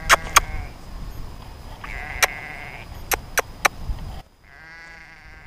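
Sheep bleating three times, each a wavering call, the last the clearest. Under the first two bleats are a low rumble and a few sharp clicks that stop abruptly about four seconds in.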